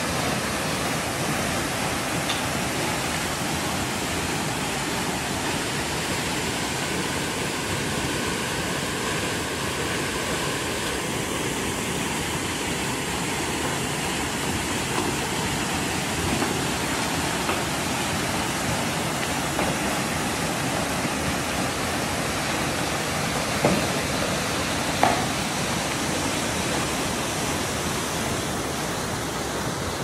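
Waterfall pouring into a rock pool: a steady, dense rush of falling water. Two brief knocks come about three-quarters of the way through, a second and a half apart.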